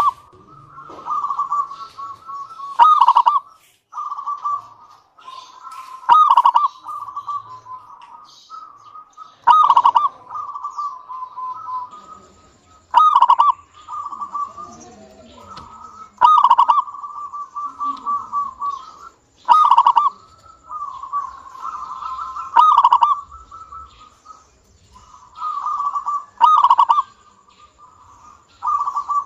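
Local Indonesian zebra dove (perkutut) singing, used as a lure song to get other perkutut to sing. It repeats its cooing phrase about every three seconds: a rapid rolling trill of coos ending in a louder note.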